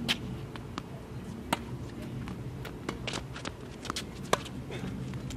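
Tennis rally on a hard court: sharp pops of racket strings striking the ball and the ball bouncing, several times about a second or so apart, with light footsteps on the court. A low steady hum runs underneath.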